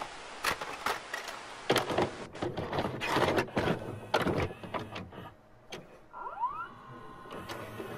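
A VCR mechanism loading and starting a videotape: a run of clicks and clunks with motor whirring over tape hiss, then a few rising tones about six seconds in.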